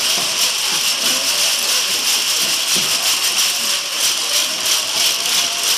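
Many small bells on dancing Tyrolean Matschgerer carnival costumes jingling and shaking steadily and densely, over the chatter of a crowd of guests.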